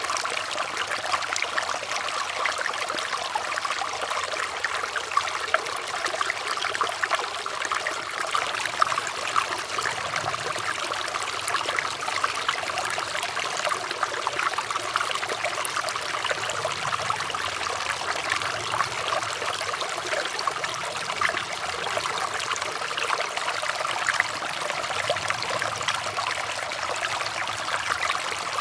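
Water trickling and babbling steadily, a continuous bright splashing with many small droplet sounds and little deep rumble, as from a small stream or trickle.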